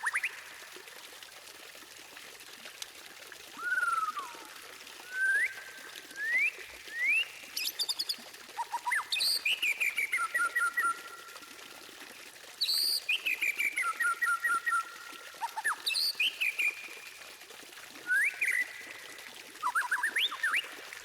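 White-rumped shama (murai batu) singing in varied whistled phrases: quick rising slurred whistles, a falling whistle, and runs of rapid repeated notes, over a steady faint hiss.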